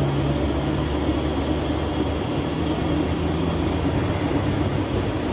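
A motor or engine running steadily, a low even drone.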